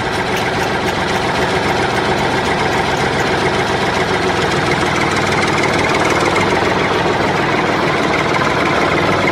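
Tractor engine running steadily at a low, even pace, accompanying the toy tractor as it pulls its trolley.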